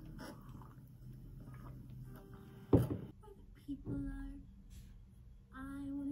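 A ceramic mug set down on a table with one sharp knock about three seconds in, followed by a lighter knock, over a low room hum. Short pitched vocal sounds come in near the end.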